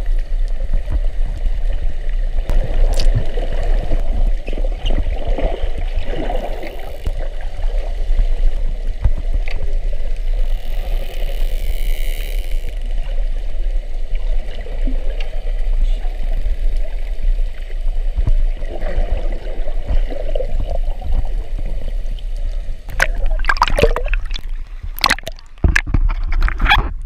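Muffled underwater water noise against an action camera's housing, a steady low rumble with a few scattered ticks. About 23 seconds in it turns to splashing and sloshing as the camera breaks the surface.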